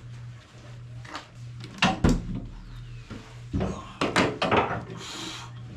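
A few scattered clanks and knocks, as of metal tools or parts being handled, the loudest about two seconds in and a cluster near the end, over a steady low hum.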